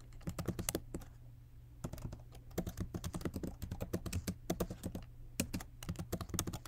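Typing on a computer keyboard: quick runs of key clicks broken by short pauses, as a terminal command is typed out.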